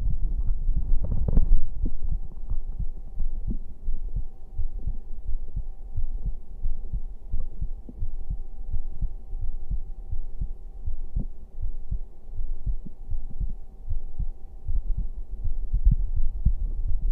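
A person's heartbeat picked up by a microphone held against the chest: a steady run of low thumps, with a faint steady hum behind.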